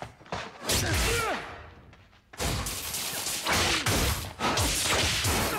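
Film battle soundtrack of a wizard duel: spell blasts whooshing and crashing. It comes in two noisy stretches, with a short drop about two seconds in.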